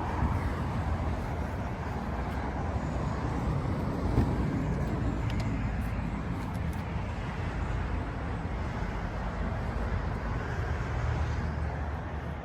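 Steady vehicle noise: a car or truck running, with road or traffic noise, and a brief louder moment about four seconds in.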